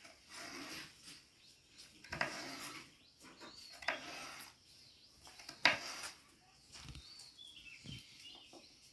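Kitchen knife cutting through peeled raw potato and knocking on a wooden chopping board: about five separate chops a second or two apart, the loudest about halfway through.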